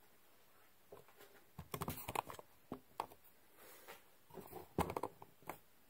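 Light knocks and clatter from small objects being handled, coming in a few short clusters with quiet between them, the loudest near the end.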